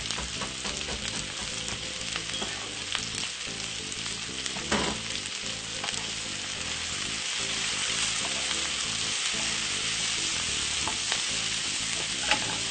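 Curly kale, red onion and carrot strips stir-frying in olive oil in a frying pan: a steady sizzle, with scattered clicks as the vegetables are stirred.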